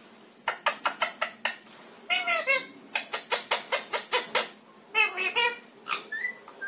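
Indian ringneck parakeet vocalizing in bursts of short, rapid squawks and chattering syllables, with a short rising whistle near the end.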